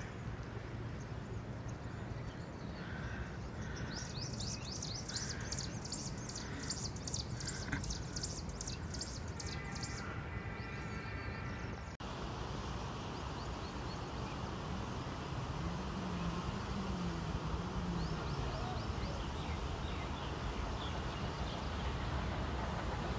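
Outdoor hillside ambience: birds calling and a rhythmic high-pitched chirping in the first half. After a brief dropout, a steady background hiss and rumble follows.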